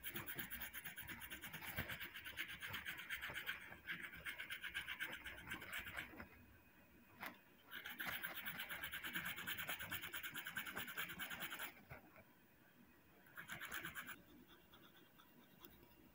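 Young mango stone rubbed back and forth on a rough brick: a fast, even scraping in three bouts with short pauses, the last one brief. One side of the stone is being ground down until a hole opens through it, the hole that will make the mango-stone whistle sound.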